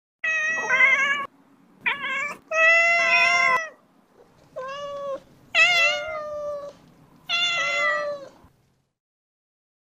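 A cat meowing: about six separate drawn-out meows, each up to about a second long, some bending up and then down in pitch, stopping a little before the end.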